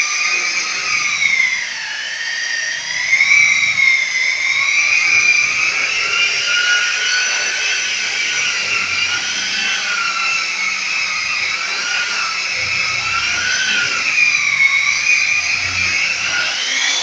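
Handheld electric power tool with a round pad worked over a burnished-cement wall finish, its motor whine steady in level but wavering up and down in pitch throughout.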